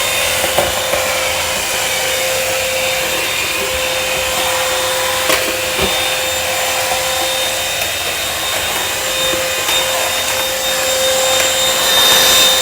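SAYONA cordless vacuum cleaner running steadily on full suction. Its motor gives a constant whine over the rush of air, with two light knocks about five and six seconds in and a slight swell near the end.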